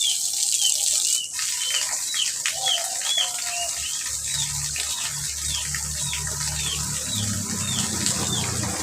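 High, short chirps of small birds repeating several times a second, with a brief lower cluck about three seconds in. A low steady hum comes in about halfway through.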